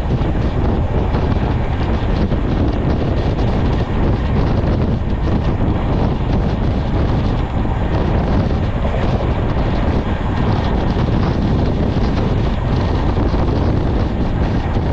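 Steady rumble of a moving passenger train on the rails mixed with wind rushing over the microphone, heard at an open carriage window.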